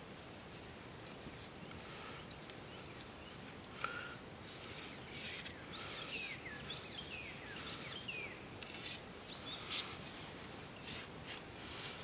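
Soft, scattered rubbing and scratching strokes as white ochre paste is worked into the carved line work of a wooden club. Midway, a bird calls with a few short falling whistles.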